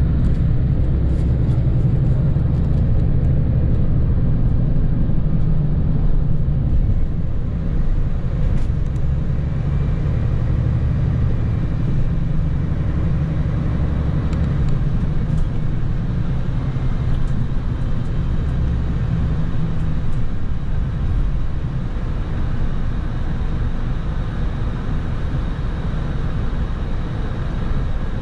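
Steady low rumble of a moving coach heard from inside the passenger cabin: engine and tyre noise on the road.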